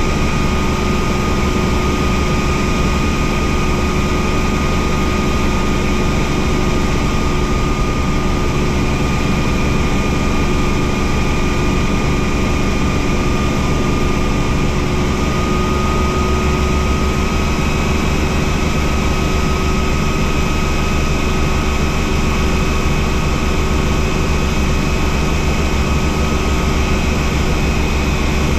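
Bell 47 helicopter in flight: piston engine and main rotor running steadily, with a constant whine over dense low noise, heard from outside the open bubble cockpit with wind on the microphone.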